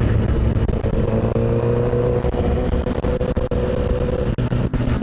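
Motorcycle engine running steadily while riding, its note climbing slightly about a second in and then holding.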